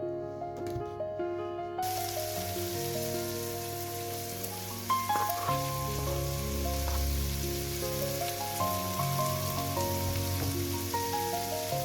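Food sizzling as it fries, starting about two seconds in and growing louder about halfway through, with a few sharp clicks, over background music.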